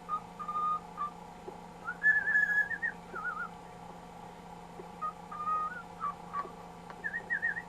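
Cockatiel whistling in several short phrases: clear level notes alternating with quick warbling trills.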